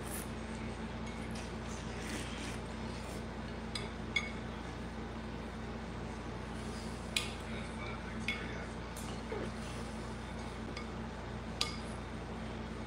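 Spoon clinking against a glass bowl of soup: about half a dozen light, separate clinks as it scoops, over a steady low hum.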